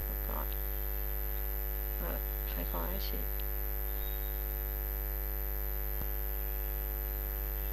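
Steady electrical mains hum with a ladder of overtones, the recording's constant background. A faint voice murmurs briefly two to three seconds in, and there is a single faint click about six seconds in.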